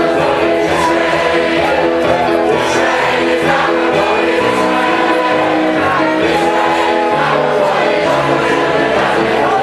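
A large crowd singing a spiritual together as a choir, with musical accompaniment and held, sustained notes.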